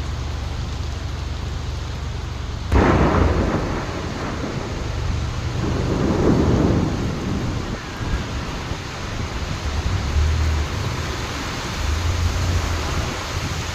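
Steady rain with a sudden clap of thunder about three seconds in, rolling on into a rumble that swells again a few seconds later and dies away.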